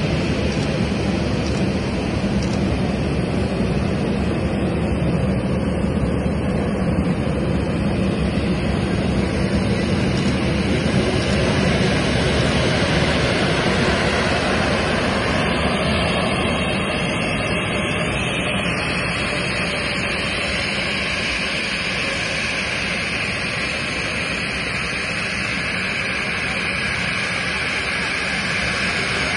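Jet engines of a Boeing 737 airliner running at taxi power, a steady rushing noise. A high whine grows stronger in the second half as the aircraft turns toward the listener.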